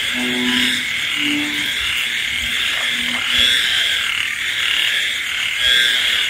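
Night chorus of frogs and insects calling in the rain: a dense, pulsing high buzz runs throughout, and a few short, low frog notes sound over it.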